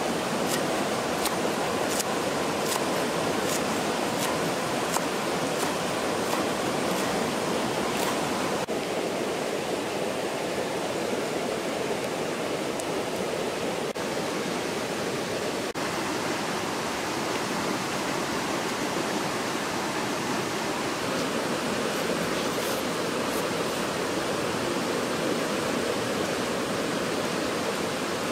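Steady rushing background noise throughout. Over it, in roughly the first eight seconds, light knife taps of a cleaver slicing green onions on a wooden chopping board, about one a second.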